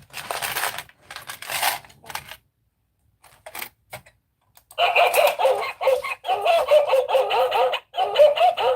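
Small hard objects rattling and clattering in two bursts, then after a short pause a continuous warbling, pitched sound starts about five seconds in and keeps going.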